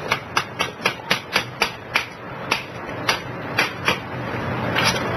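Bump key in a pin-tumbler door lock being struck with a series of sharp taps, about four a second for the first two seconds and then slower and more spaced out: the lock-bumping technique that jars the pins so the lock can be turned open.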